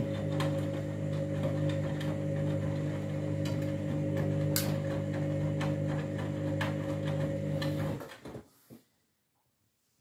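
Candy front-loading washing machine at the end of its main wash: the drum motor hums steadily as the drum turns the wet laundry, with scattered clicks and splashes, then the motor stops abruptly about eight seconds in.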